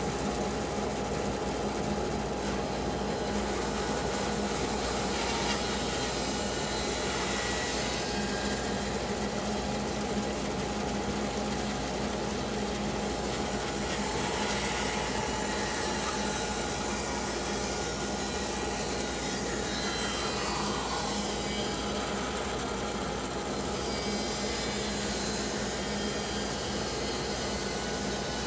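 Bandsaw running and sawing through a pecan log, a steady, even sawing noise with the motor's hum underneath.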